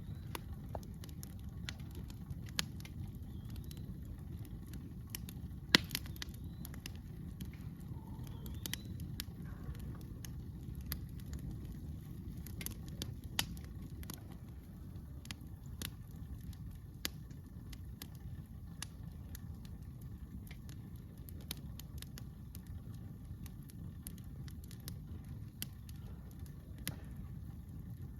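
Wood campfire crackling, with irregular sharp pops over a steady low rumble; one pop about six seconds in is the loudest.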